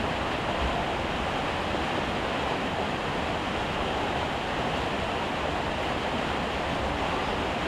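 Heavy rain falling steadily: a dense, even hiss with no breaks or separate drops standing out.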